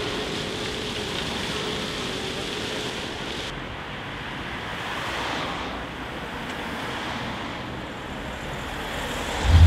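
Town street traffic: cars running and passing in a steady hum of road noise, swelling and fading as vehicles go by. Near the end a deep, loud low boom swells up.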